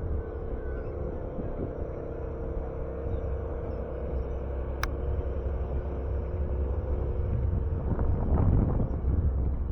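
Road traffic: a steady low rumble with a steady hum, swelling about eight seconds in as a vehicle passes. A single sharp click about five seconds in.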